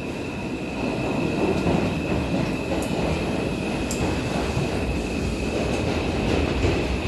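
Inside an R142 subway car: steady rumble of the train with a thin, high, steady whine over it and a few faint clicks.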